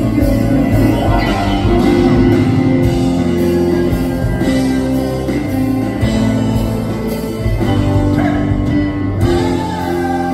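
Live rock band playing, with keyboard and guitar under a sung vocal line.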